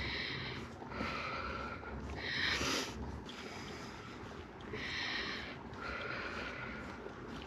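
A person breathing hard through the mouth: about five heavy, noisy breaths in and out, the loudest about two and a half seconds in. This is the laboured breathing of cycling or pushing a loaded touring bike up a steep climb of about 13 percent at high altitude.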